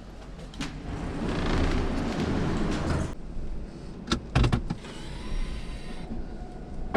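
A small electric motor in a car runs for about two seconds, then a few sharp clicks and a dull thud follow.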